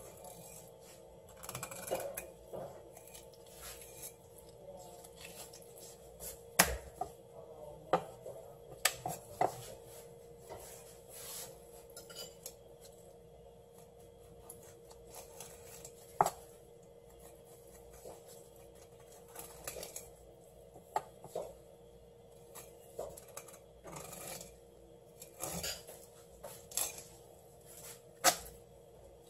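Knife filleting a sea bass on a wooden cutting board: scattered sharp knocks and clicks of the blade against the board and bones, with soft scraping between them, over a faint steady hum.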